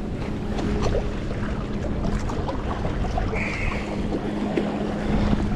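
Seawater sloshing and lapping against jetty rocks close by, with wind buffeting the microphone and a steady low hum underneath. A short high chirp sounds about three and a half seconds in.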